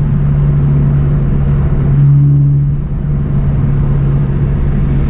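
Scion FR-S's 2.0-litre flat-four heard from inside the cabin through a catless, non-resonated straight-pipe exhaust. It gives a steady, even-pitched exhaust drone, with a brief dip in level about three seconds in.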